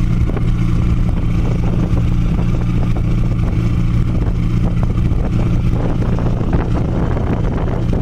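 A ferry's engine runs with a steady low drone, with wind noise over it.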